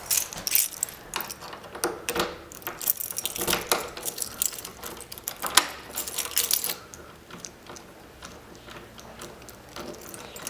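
Key working an old door lock freshly lubricated with silicone spray: the keys jangle and the lock mechanism clicks and scrapes over about the first seven seconds, then only faint clicks.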